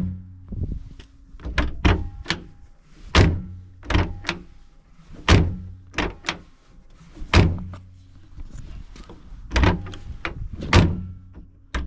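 Cargo-door handle and latch linkage of a 1995 GMC Yukon being worked over and over, giving about a dozen sharp clicks and clunks a second or so apart, often in close pairs. The linkage spring has just been freed up with WD-40, taking up the play in the handle.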